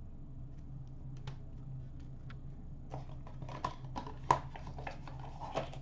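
A steady low hum, then from about three seconds in a run of sharp crinkles and clicks as a paper card pack is handled and torn open over a bin. The loudest snap comes a little after four seconds.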